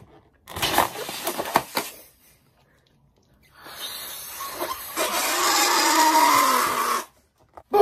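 Rubber balloons being handled and blown up by mouth: a stretch of crackling rubber handling about half a second in, then from about three and a half seconds a long, hard breath blown into a balloon, with a wavering buzzy tone, cutting off suddenly near the end.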